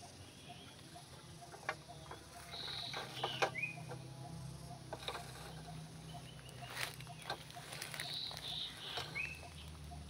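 A few sharp clicks and taps from a clear plastic insect box being handled, with short high bird chirps in the background, two of them sliding downward in pitch.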